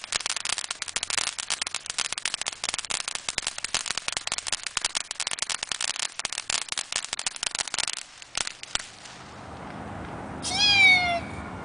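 A string of firecrackers going off in a rapid, dense crackle for about eight seconds, then two last separate pops. Near the end there is a short high call that falls in pitch.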